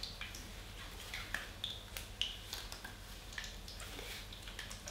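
Faint, scattered crackles and clicks at irregular intervals from luqaimat dough balls frying in a pan of oil, with a thin plastic glove rustling as it is pulled on.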